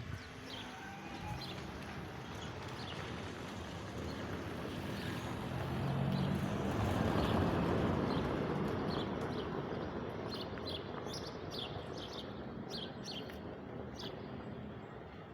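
Small birds chirping in short repeated calls, more of them near the end. Underneath, a steady rushing sound with a low hum swells to its loudest about halfway through and then fades, as a vehicle passing.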